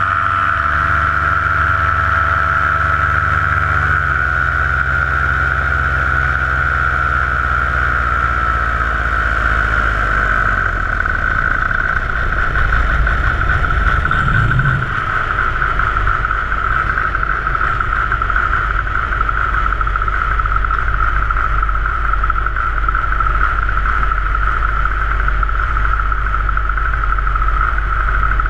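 Paramotor engine and propeller running in flight: the engine note drops a step about four seconds in, then slides steadily lower as it is throttled back. Its note fades out at about ten seconds, leaving a steady rush of wind with a high whistle.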